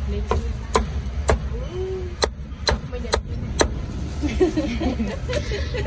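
Cleaver chopping crispy-skinned roast pork belly on a round wooden chopping block: about eight sharp knocks, several of them about half a second apart, over a steady low rumble and faint background voices.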